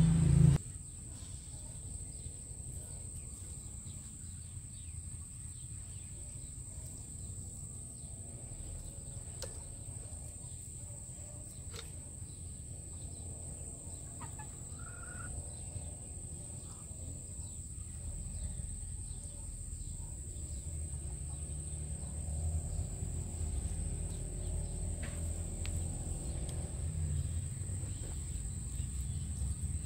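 Quiet rural outdoor ambience: a steady high-pitched insect drone over a low rumble that grows louder through the second half, with a faint bird chirp about halfway through and a few soft clicks.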